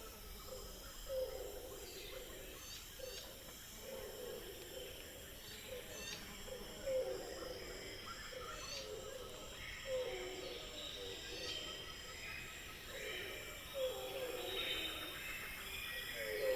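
Jungle ambience: a low call repeats about every one and a half seconds under scattered bird chirps and whistles. A steady high insect trill runs underneath.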